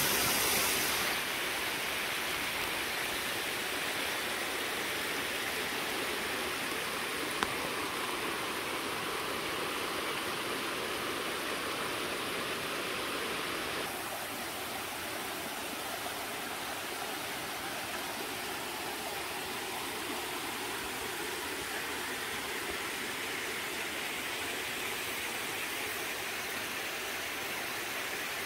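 Steady rushing of a small stream running over loose stones and rubble left by a landslide. The sound shifts slightly about a second in and again about halfway through, and there is one brief click about seven seconds in.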